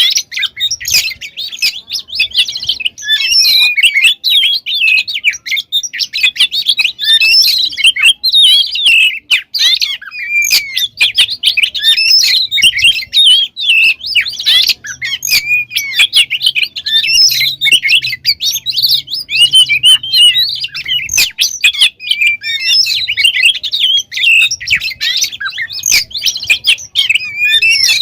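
Oriental magpie-robin singing without a break: a rapid, varied stream of whistles, trills and chattering notes packed with mimicked phrases.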